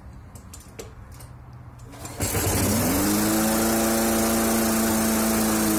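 An old four-stroke Briggs & Stratton walk-behind lawn mower engine starts about two seconds in, rising in pitch as it spins up, then runs at a steady speed. This is its first start after a tune-up.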